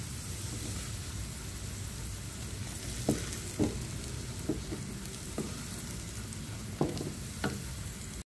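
Afritada stew sizzling and bubbling in a pan, a steady hiss. From about three seconds in, a utensil knocks against the pan about seven times as the fried cubes are stirred into the sauce.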